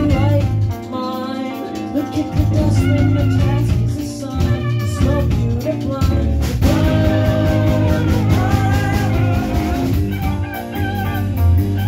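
Live rock band playing amplified electric guitars and drum kit, with a sharp crash about six and a half seconds in.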